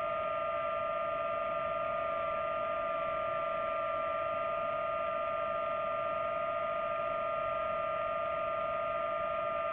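DJI FPV drone's motors and propellers whining at a steady pitch, with an even rushing hiss of propeller wash underneath.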